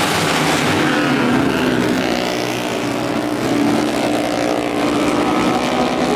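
Engines of composite vỏ lãi racing boats running at speed, their pitch sliding as the boats pass.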